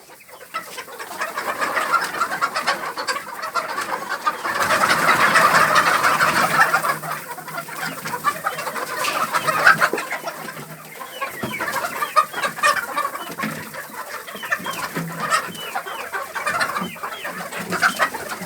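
A flock of laying hens clucking and calling together in a dense, continuous chatter, loudest about five seconds in.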